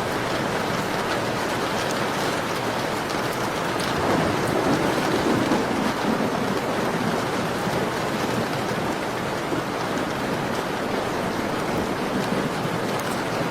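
Steady rain falling on a window pane, an even hiss with faint scattered ticks from individual drops. The rain swells a little louder about four seconds in, then settles back.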